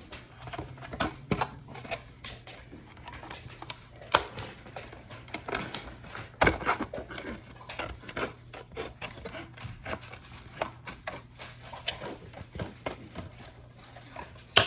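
Irregular clicks, snaps and rubbing of thin plastic armour parts being handled and trimmed, with a faint steady hum underneath.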